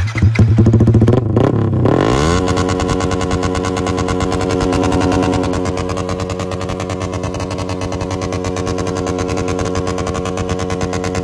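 Yamaha MT-15 V2's single-cylinder engine breathing through an aftermarket SC Project slip-on exhaust: a few quick throttle blips in the first couple of seconds, then a steady idle with an even exhaust pulse.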